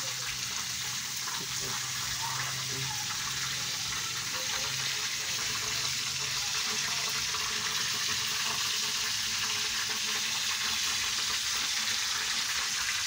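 A steady, even hiss, with a faint low hum in the first few seconds.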